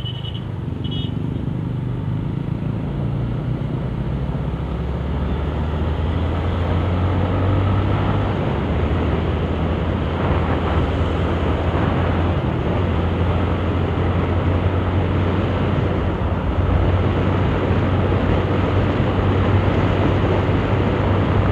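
Honda RS125 Fi underbone's single-cylinder engine running steadily under way, heard from the bike with a constant rush of wind and road noise. The engine note rises a little and grows slightly louder as the bike picks up speed a few seconds in.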